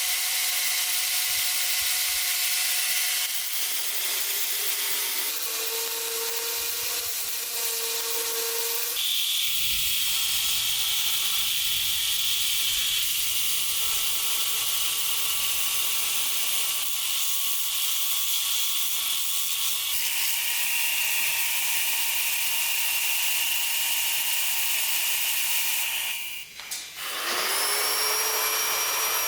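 Electric grinder running steadily on metal, its pitch shifting slightly as the load changes. Near the end it stops briefly, then spins back up.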